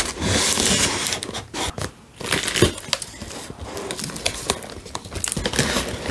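Cardboard shipping box being torn open by hand: packing tape ripping off and cardboard flaps scraping and crinkling, with scattered sharp cracks. The loudest rasp comes in the first second, then quieter rustling.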